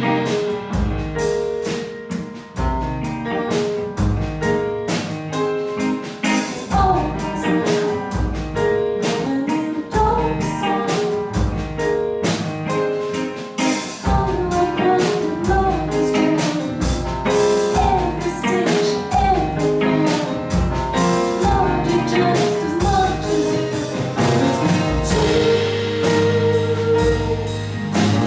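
Live instrumental jazz trio playing: upright piano, electric guitar and drum kit together, with a steady low pulse and cymbal strokes under moving melody lines, and a long held note near the end.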